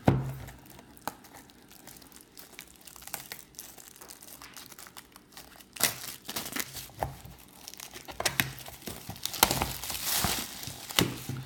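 A water-filter cartridge box being opened by hand: cardboard tearing and packaging crinkling, with scattered small clicks at first and a denser, louder stretch of rustling and tearing in the last few seconds.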